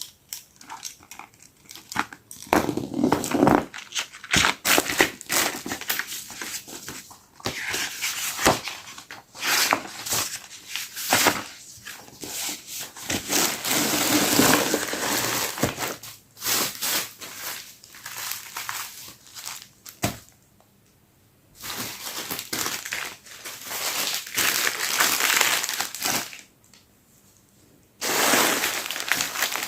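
Parcel packaging being unwrapped by hand, crinkling and rustling in uneven bursts with brief pauses, and some tearing.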